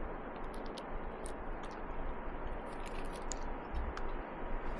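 Faint scattered clicks and crinkles of fingers picking at and breaking a piece off a foil-wrapped beeswax-and-tallow survival candle, over a steady room hum.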